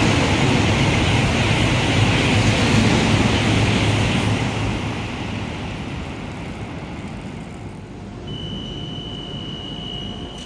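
CRH380AL high-speed train running through the station, a loud rush of wind and wheel noise that fades away after about five seconds. Near the end a steady high-pitched whine starts up from another CRH train standing at the platform.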